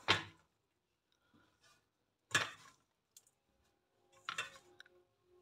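A metal colander clinking and knocking against a large glass jar three times, about two seconds apart, as lilac petals are shaken out of it into the jar.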